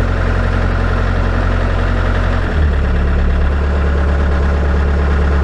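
Bobcat skid steer loader's diesel engine idling steadily after start-up. About halfway through, its pitch drops slightly and stays lower.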